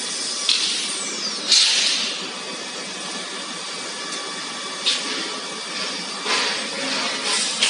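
Solventless laminator machinery running in the factory: a steady hum with faint whining tones. Several short hissing bursts break it, the loudest about one and a half seconds in, just after a falling whistle-like glide.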